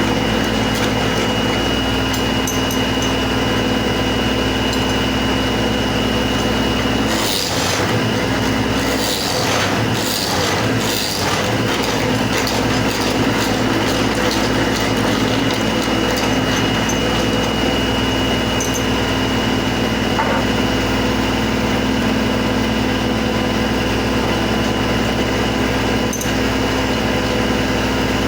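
Motor of a woodworking machine running steadily with a constant high whine. About seven seconds in the whine drops away for a few seconds while several knocks sound, then it runs on.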